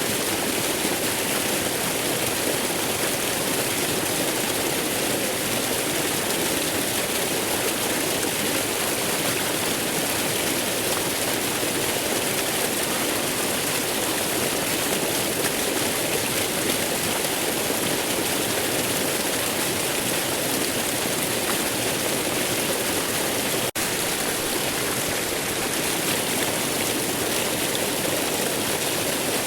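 Waterfall: a steady, even rush of falling water, with one momentary dropout about three-quarters of the way through.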